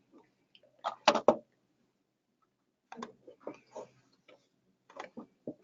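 Sharp clicks and taps in irregular clusters: a loud group of three or four about a second in, then fainter scattered clicks around three to four seconds and again near the end.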